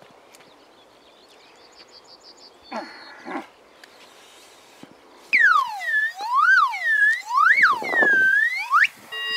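A loud, high, siren-like wail that swoops up and down about five times, starting about five seconds in. Before it come faint high chirps and two short pitched calls.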